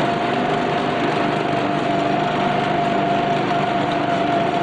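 Small engine of a track ride car running at a steady speed as the car drives along, with a constant whine over it.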